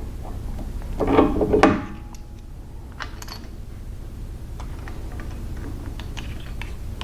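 Metal parts of a belt grinder clanking and clicking as its contact wheel is fitted back in place: a loud clatter about a second in, then scattered light clicks.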